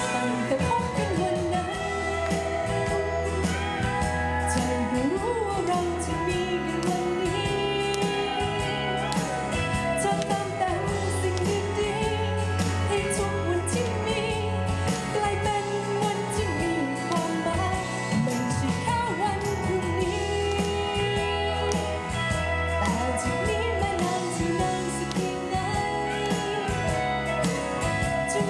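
A woman singing a song live into a handheld microphone, her voice amplified over a musical accompaniment with guitar and a steady low beat.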